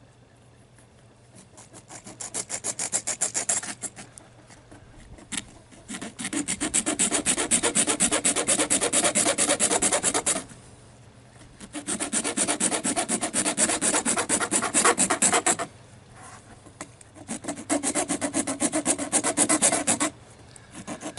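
A worn hacksaw blade, worked by hand, saws at the metal pin of a clothing security tag. It comes in four bursts of fast back-and-forth strokes, with short pauses between them. The dull blade makes little headway on the hard pin.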